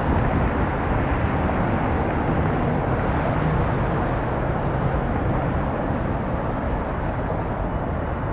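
Jet airliner engine noise, steady and loud, without a break.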